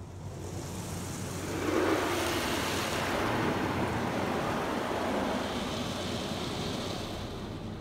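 Spot-free rinse water from a PDQ LaserWash 360 Plus touchless car wash spraying onto the car, heard from inside the cabin as a steady rushing hiss. It builds over the first two seconds as the spray reaches the car, then holds, easing a little near the end.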